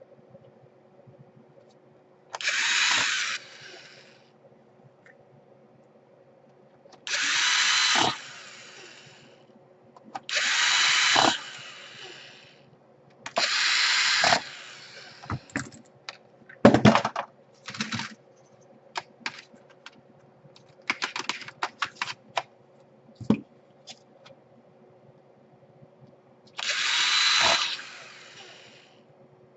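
Electric screwdriver driving screws back into a laptop's case, in five short runs of about a second each, with small clicks and knocks of handling between them.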